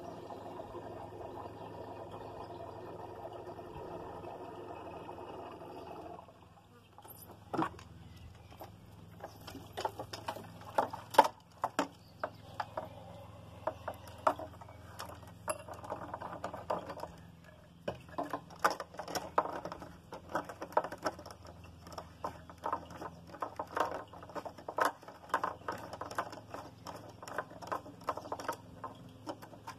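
Fuel running from a plastic fuel can's filler nozzle into a brush cutter's tank, steady for about six seconds and then stopping. It is followed by irregular clicks and knocks as the plastic can, its nozzle and the caps are handled.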